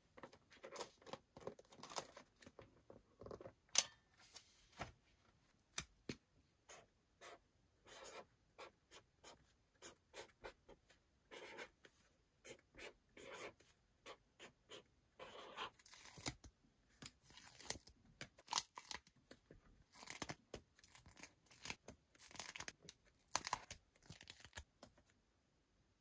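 Invisible-ink marker scratching across paper in many short, irregular strokes, mixed with the rustle of stickers being peeled off a sheet and pressed onto the pages. The sounds stop about a second before the end.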